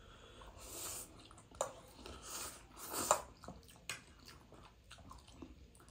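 Two people eating instant noodles: slurping and chewing, with soft wet clicks and a few sharper smacks.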